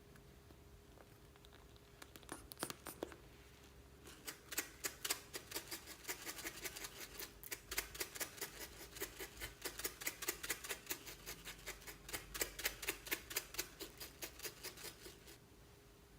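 Glossy slime being stirred and folded, making a quick, even run of wet, sticky clicks and pops at about three or four a second. It starts with a few clicks about two seconds in and stops about a second before the end.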